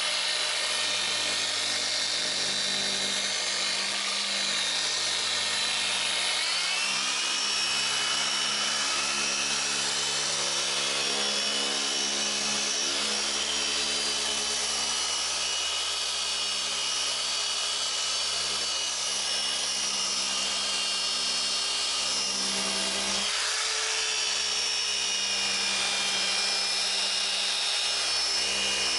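Griot's Garage BOSS G15 long-throw dual-action polisher running steadily with an orange pad on a gloss-black plastic panel, doing a light cut to take out fine scratches. Its motor note steps up about six seconds in and shifts again about three-quarters of the way through.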